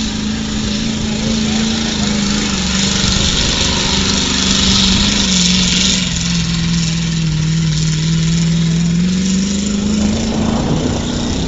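Lifted pickup truck's engine running hard under load as it drives through a mud pit. Its pitch sags a little after the middle, then climbs again near the end.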